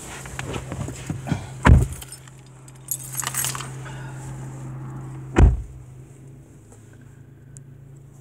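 A car door shuts with a heavy thump about two seconds in as someone gets into the driver's seat. Rustling and a metallic jingle follow, then a second heavy thump about five and a half seconds in, all over a steady low hum.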